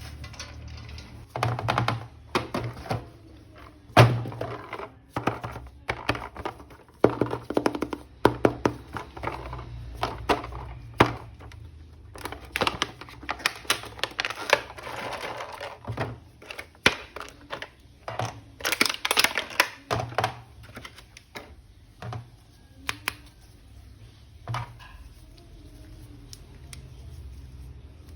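Plastic action-figure toys and their parts being handled: an irregular run of sharp clicks and knocks, with a few stretches of busier plastic rattling and rustling.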